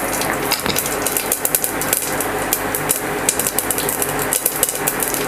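Cumin seeds crackling and popping in hot oil in a pressure cooker: many quick sharp pops over a steady sizzle, the seeds spluttering as they temper.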